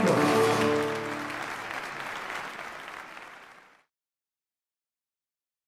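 A live band's last chord ringing out on guitar and drums for about a second, then audience applause that fades out.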